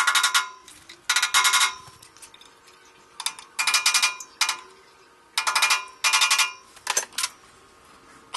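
Steel hammer rapidly tapping a pin punch to drive the roll pins out of a lathe's factory gear rack: several short bursts of quick metal-on-metal strikes, each with a bright metallic ring.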